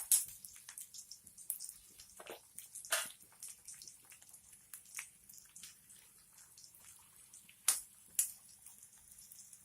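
Finely chopped potatoes frying in ghee in a kadhai, sizzling with irregular crackles and pops. A few louder spits come about three seconds in and again near the end.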